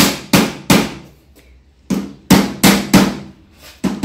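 Hammer blows: three quick strikes, a pause of about a second, then about five more at a steady pace of roughly three a second.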